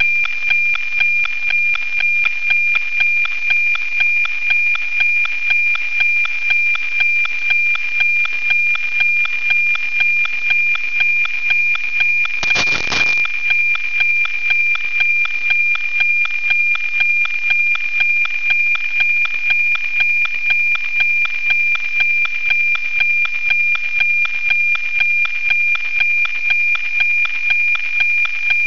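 NOAA 19 weather satellite's APT image signal received on a software-defined radio: a steady 2400 Hz tone with the regular tick-tock of the image lines, about two a second. A brief burst of static comes about twelve seconds in.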